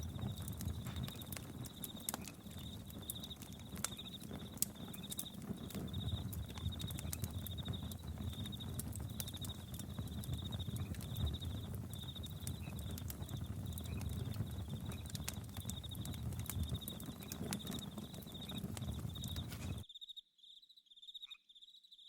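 Campfire crackling and popping with a low rumble, over crickets chirping in a steady pulsing rhythm. Near the end the fire sound cuts out suddenly, leaving only the crickets.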